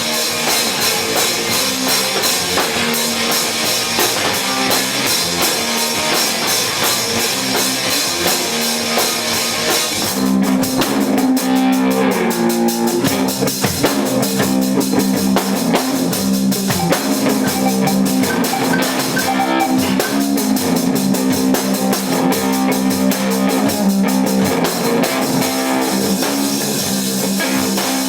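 Live rock band playing drums and electric guitar, recorded in a garage. Fast, busy cymbal playing carries the first ten seconds or so; then heavier, sustained guitar notes come in and the band plays on together.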